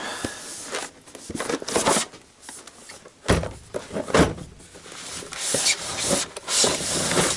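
Cardboard packaging handled and slid apart: an inner box pulled out of its printed cardboard sleeve, with rubbing and scraping of card, a couple of knocks about three and four seconds in, and a long sliding scrape near the end.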